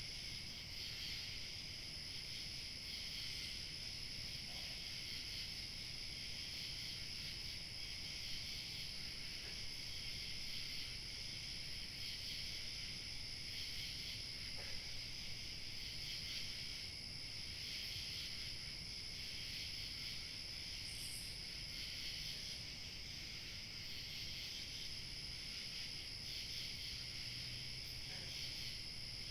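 Crickets chirping steadily in a continuous high-pitched chorus, over a faint low rumble of wind. A single brief higher chirp comes about two-thirds of the way through.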